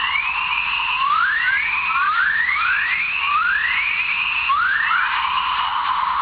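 Earth's chorus waves, natural very-low-frequency radio emissions from the magnetosphere played as sound: a string of rising chirps, about one a second and often overlapping, over a steady high hiss.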